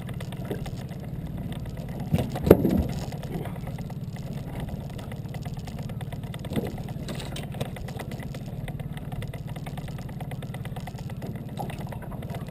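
Small outboard motor idling steadily. A short clatter of knocks comes about two and a half seconds in and is the loudest sound; a couple of lighter knocks follow later on.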